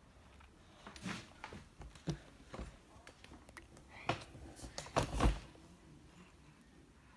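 Irregular knocks and rubbing right at the microphone, the loudest about five seconds in: handling noise from the phone as it is pressed against the child's shirt and moved about.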